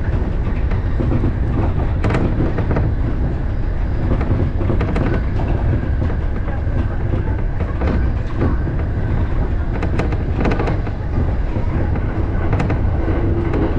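Electric commuter train running at speed, heard from inside the front of the car: a steady low rumble from the wheels and running gear, with irregular clacks as the wheels cross rail joints and switches.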